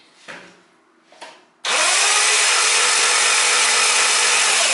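Two faint clicks, then about a second and a half in a car engine is cranked over by its starter motor for a compression test: loud, steady and even. The gauge on the tested cylinder reads zero, which the owner takes for a huge leak in that cylinder.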